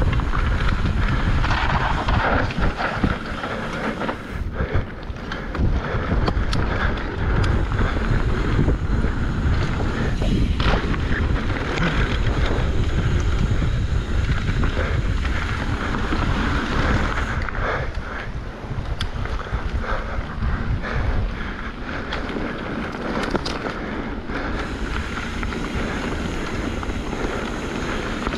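Wind buffeting the microphone over the rumble of knobby tyres on a dirt trail during a fast downhill mountain bike run, with occasional sharp knocks and rattles from the bike.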